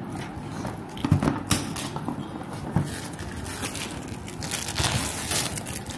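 Plastic shrink wrap on a cardboard box crinkling and crackling under the hands as it is worked loose, with a few sharper clicks.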